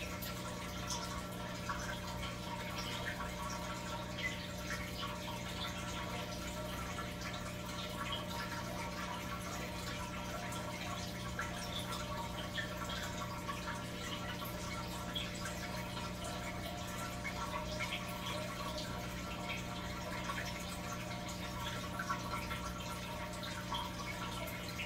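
Aquarium filter running: water trickling and dripping steadily, with many small drips, over a low, steady electric hum.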